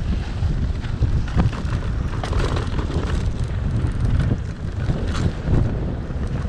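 Wind buffeting the microphone of a mountain bike's camera as the bike rolls fast down a dirt singletrack, with tyre rumble and several short clattering knocks from the bike over bumps.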